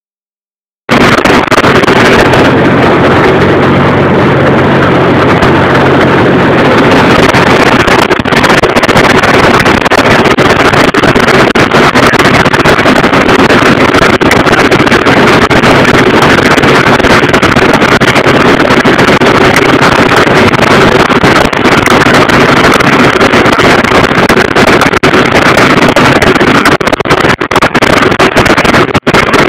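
Allis-Chalmers D17 tractor running steadily under load, pulling a PTO-driven Allis-Chalmers 904 mower conditioner through hay, heard loud from the operator's seat with wind on the microphone. The sound starts suddenly about a second in and has a few brief dropouts near the end.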